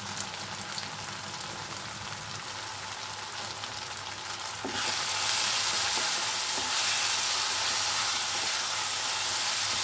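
Onion-tomato masala sizzling in hot oil in a non-stick frying pan. The sizzle grows louder about halfway through, as the masala is stirred with a plastic spatula.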